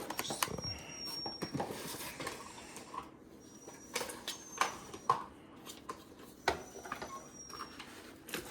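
Packaging of a remote-control car being handled and unpacked: scattered clicks, taps and rustles, with a few faint, short, high squeaks.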